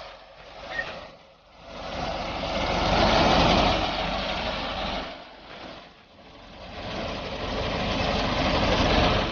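Tractor engine running as it works a rear-mounted reaper, getting louder and then fading twice.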